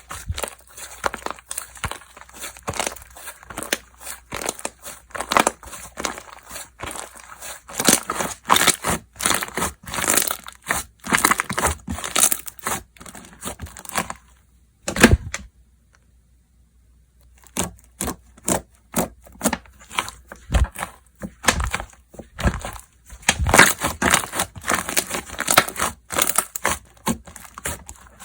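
Slime being squished and stretched by hand, giving dense runs of small wet clicks and crackles. About halfway through it stops for roughly three seconds, apart from one sharp pop, then starts again.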